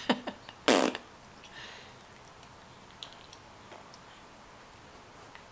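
A child's mouth noise: one short, loud, rattling burst about a second in, just after a couple of sharp clicks, followed by faint scattered clicks and smacks.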